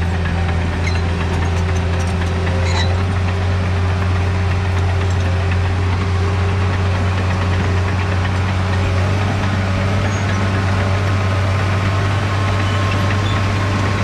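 John Deere crawler dozer's diesel engine running steadily as the dozer pushes dirt with its blade, a loud even drone.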